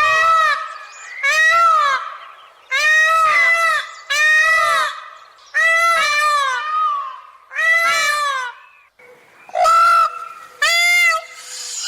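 A peacock giving its loud, repeated calls, about nine in a row. Each call is a ringing note that rises and then falls in pitch.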